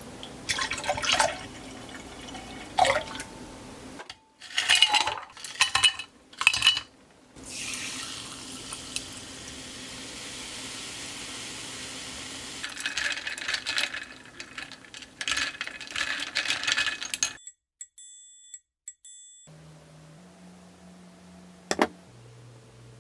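Pomegranate vinegar poured in a thin stream into a tall glass, then a few sharp clinks of ice dropped in. Sparkling water is then poured over it, hissing and crackling as it fizzes. A few steady electronic tones follow near the end.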